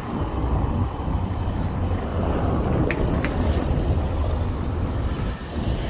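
Outdoor street noise: a steady low rumble, with two brief high chirps about three seconds in.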